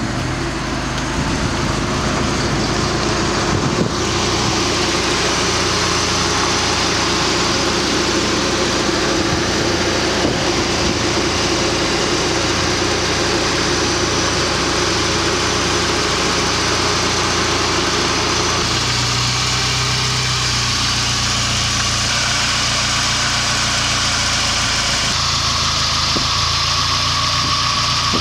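Saab 900's four-cylinder engine idling steadily with the bonnet open, its tone shifting slightly a few times.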